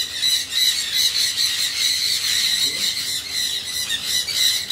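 Indian ringneck parakeets squawking: a continuous stream of short, harsh, high-pitched calls in quick succession.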